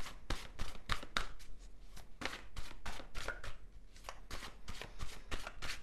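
Tarot cards being shuffled by hand: an irregular run of short, quick clicks and slaps, several a second.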